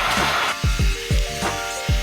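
Background music with a steady beat of deep kick drums that drop in pitch and short held synth notes. A heat gun's steady blowing hiss cuts off about half a second in.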